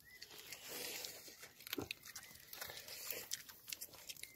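Roasted chicken being eaten and pulled apart: quiet crunching and tearing, with scattered small clicks.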